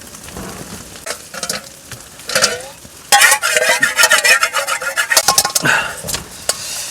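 Soya chaap frying in hot oil in a pan, stirred with a utensil. A few scrapes and clicks come first, then about three seconds in the sizzling starts loud and crackles on, with many sharp ticks.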